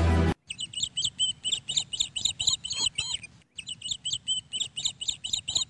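Birds chirping: a quick, steady run of high chirps, several a second, that breaks off briefly about three seconds in and then starts again in the same pattern.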